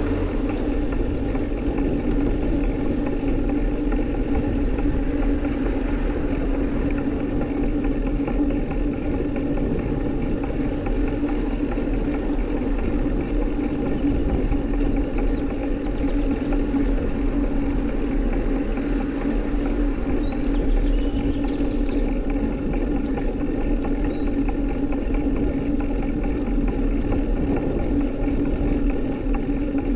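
Steady riding noise picked up by a bike-mounted action camera: wind and rolling rumble with a constant low hum, unbroken throughout. A few faint high chirps come through a little past the middle.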